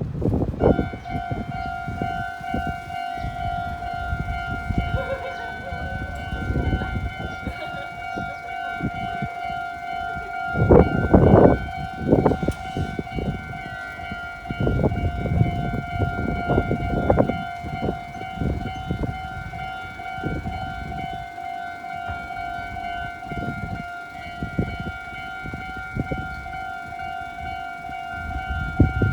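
Japanese railroad crossing warning bell starts about half a second in and keeps ringing steadily. Under it a train rumbles past with wheel clatter, loudest about 11 seconds in.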